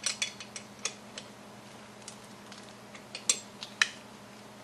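Small metal clicks and clinks of a screw, bracket and tool being handled as a screw is fitted and tightened: a cluster of sharp clicks in the first second, then two louder ones about three and a half seconds in, over a faint steady hum.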